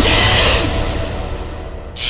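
Soundtrack music over a low rumble, both fading away over the last second.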